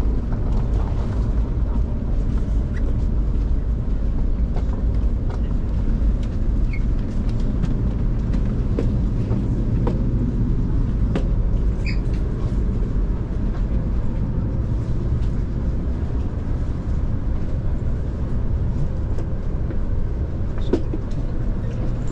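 Steady low rumble of a moving vehicle, heard from inside the cabin, with a few faint clicks.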